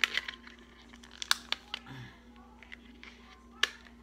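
A new OtterBox Defender phone case and its plastic packaging being handled: several sharp plastic clicks and snaps with some rustling, the loudest right at the start, about a second and a quarter in, and near the end.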